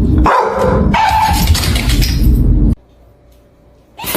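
A dog vocalising over loud, rumbling noise that cuts off suddenly before three seconds in.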